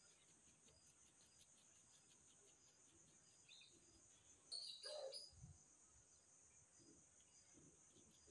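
Faint, steady, high-pitched insect chirring with faint regular ticks. About four and a half seconds in there is a brief, louder sound of unclear source.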